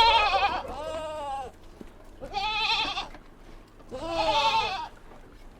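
Goat bleating repeatedly: four wavering, quavering calls of about a second each, with short pauses between them.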